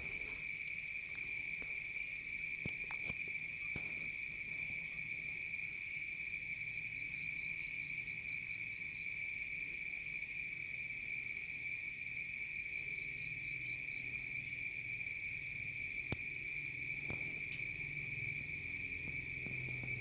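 Insects, such as crickets, trilling steadily as one continuous high-pitched drone, with short runs of quicker, higher chirping pulses coming and going over it.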